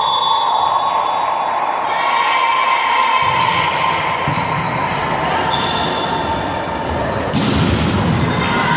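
Indoor volleyball rally echoing in a sports hall: the ball struck by players, sneakers squeaking in short high chirps on the court floor, and players and spectators calling out. A louder impact comes about seven seconds in.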